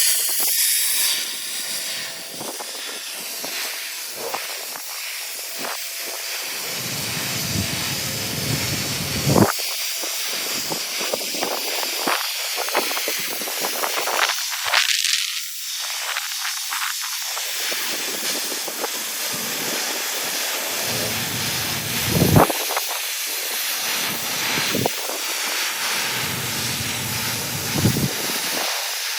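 TIG welding arc hissing steadily while a root pass is laid, with a few sharp pops scattered through it.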